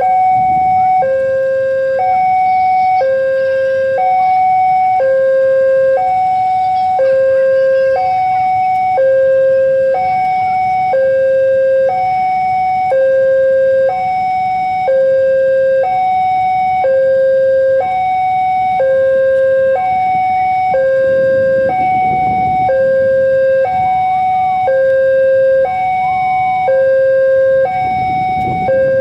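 Railway level-crossing warning alarm sounding a steady electronic two-tone, a high and a low note alternating about once a second. A low rumble swells underneath about two-thirds through and again near the end.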